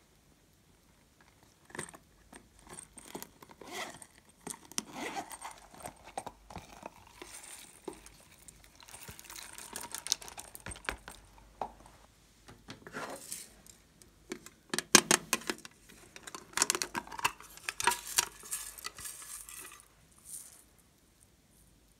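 Hands handling silicone and plastic craft pieces over a glass dish: scattered small clicks, taps and rustles, turning into a dense run of light clinking in the second half as loose plastic gem sequins are handled.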